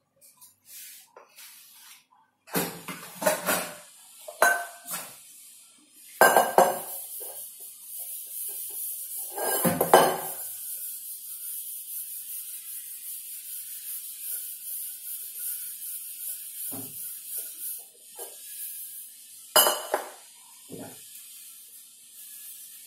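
Steel pots, lids and utensils clattering and clinking in a stainless-steel sink as dishes are washed by hand, in a series of knocks. Through the middle a steady hiss of running tap water sits under them.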